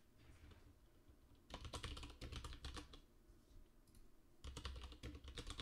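Faint typing on a computer keyboard: a run of keystrokes about a second and a half in, then another starting near the end.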